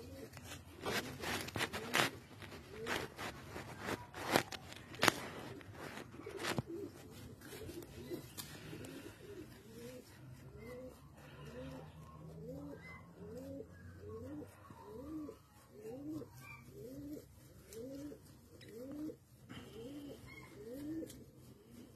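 Wombats grazing close up. Sharp, irregular crunching clicks of grass being torn and chewed come in the first few seconds. A soft, short rising call then repeats steadily about once a second.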